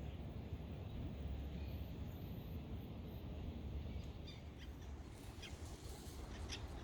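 Wind rumbling on the microphone, with short, sharp high-pitched sounds joining about halfway through.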